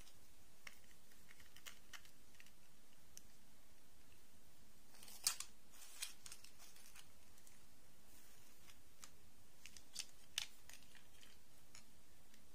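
Small plastic dolls being handled and set down: scattered light clicks and taps, the sharpest a few seconds into the middle and a pair near the end, over a low steady hiss.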